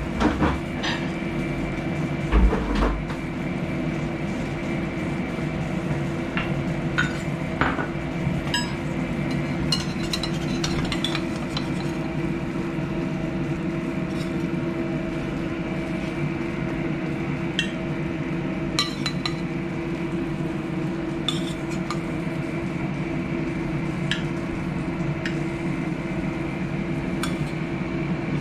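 Slotted metal spatula clinking and scraping against a stainless steel frying pan and a ceramic platter as glazed tofu slices are lifted out, in scattered short clicks with a couple of louder knocks in the first three seconds. A steady hum runs underneath.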